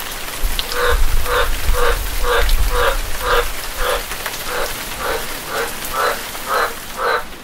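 A frog calling over and over in steady rain, about two croaks a second.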